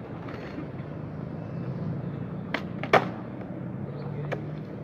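Skateboard wheels rolling on concrete, with sharp clacks of the board about two and a half and three seconds in, the second by far the loudest: a half cab flip being popped and landed. One more lighter clack follows near the end.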